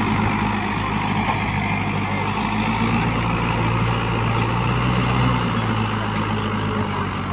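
Mahindra 475 DI XP Plus tractor's four-cylinder diesel engine running steadily under heavy load, straining to pull a sand-laden trailer out of soft sand. The engine note swells slightly in the middle.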